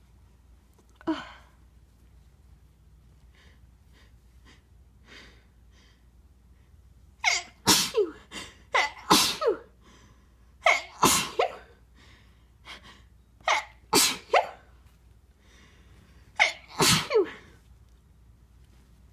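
A person's sneezes, induced with a tissue: a few soft sniffs and breaths, then a run of about five loud sneezes over the second half, each led by quick gasping in-breaths.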